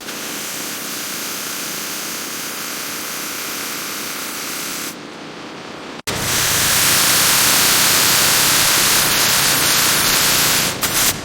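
A jet spraying with a steady rushing hiss. It briefly dulls and cuts out about six seconds in, then resumes louder and brighter, stopping just before the end.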